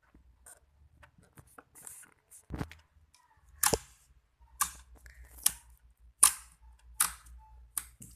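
Slime being squeezed and poked by hand, giving a series of sharp pops and clicks about once a second, starting a couple of seconds in.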